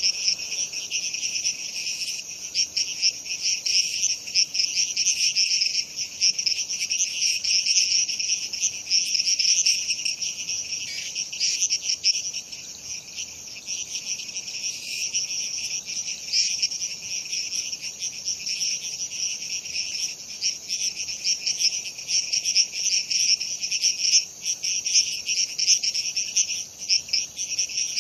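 Night chorus of frogs and insects: many callers overlapping in a dense, continuous, high-pitched calling with no break.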